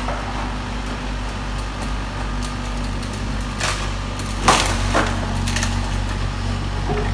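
Volvo EC55D mini excavator's diesel engine running steadily at low speed. A few sharp knocks and cracks come from the machine's tracks as it moves over the container floor, the loudest about four and a half seconds in.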